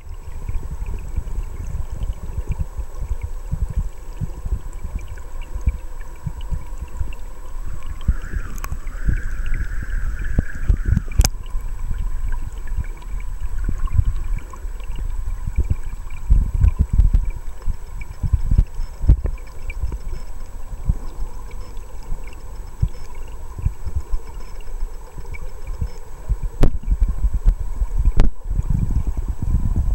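River current moving around a camera held underwater, heard as a muffled, uneven low rumble, with a few sharp clicks.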